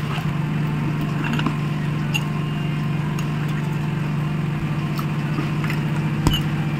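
Steady low machine hum, like a motor running, with a few faint light clicks scattered through it.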